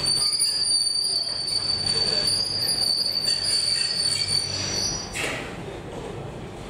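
Great Western steam locomotive and tender moving slowly along the platform, its steel wheels squealing on the rails in a steady high tone over a low rumble. The squeal drops away about five seconds in.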